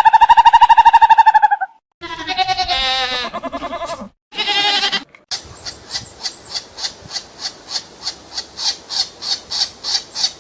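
Animal calls from several different animals in quick succession: a buzzing call that stops about a second and a half in, a wavering call, a short call, then a long run of short high calls at about four a second.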